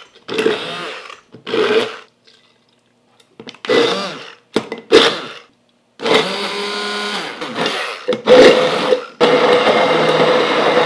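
Immersion (stick) blender running in a glass mason jar, started and stopped in short runs of about a second, then run steadily for the last couple of seconds, emulsifying a Caesar dressing as olive oil is poured in.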